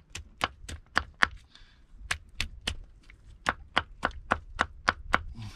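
An abalone (ormer) foot being pounded on a rock to tenderize it: quick, sharp knocks at about four a second, with a brief pause a little under two seconds in, stopping shortly before the end.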